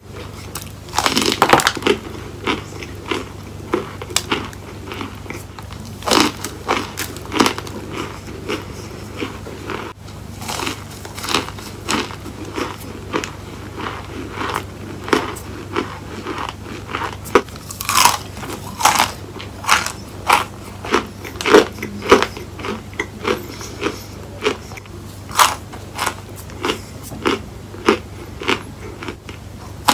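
Chunks of a molded cornstarch block being bitten and chewed: a run of sharp, crumbly crunches about every half second to a second, over a steady low hum.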